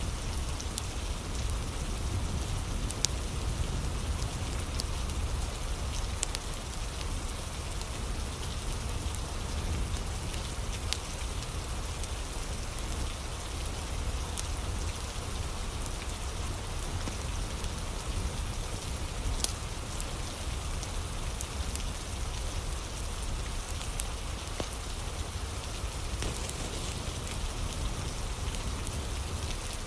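Steady rain falling, with a low rumble underneath and scattered sharp clicks.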